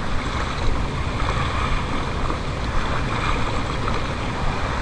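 Wind buffeting the microphone over small sea waves washing against a concrete seawall: a steady rushing noise with a low rumble.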